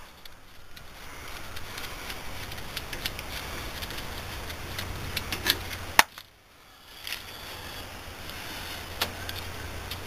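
Scattered metallic clicks and clinks of hand tools and parts being handled at a Ford F-250's front disc brake caliper, over a steady low hum; the sharpest click comes about six seconds in.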